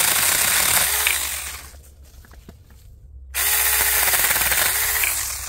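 Saker 4-inch cordless 20-volt mini electric chainsaw running and cutting through a pear tree branch, in two bursts with a quieter pause of about a second and a half between them. The cuts go smoothly.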